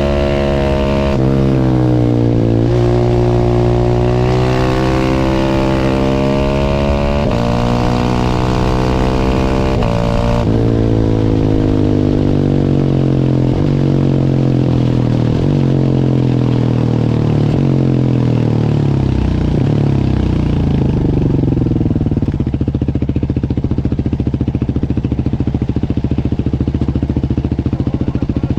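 Large single-cylinder supermoto engine of the 690 class pulling hard through several quick upshifts, its pitch climbing and dropping with each shift. It then winds down steadily on the overrun and settles to a low, steady idle for the last few seconds.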